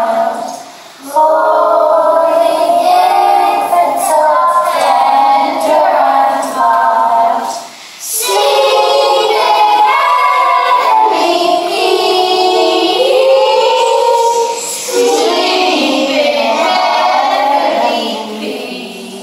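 A group of young children singing a song together in phrases, with two short breaks between them, the singing dying away near the end.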